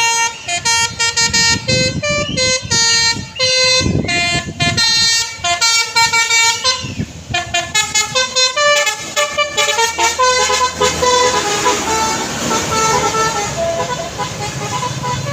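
Basuri telolet multi-tone musical air horn on a tour bus playing a quick melody of short notes that jump up and down in pitch, the notes running together and overlapping in the second half.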